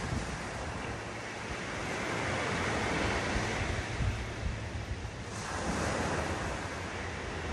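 Ocean surf washing in and out, swelling and easing with a fresh surge about five seconds in, with wind buffeting the microphone.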